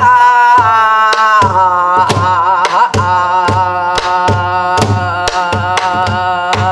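A woman's pansori voice holds long open-vowel vocalise lines ("aha~ hahaha eoheu~") that waver in pitch about halfway through. Under it a buk barrel drum is struck with a stick in a steady beat of deep thuds at uneven spacing.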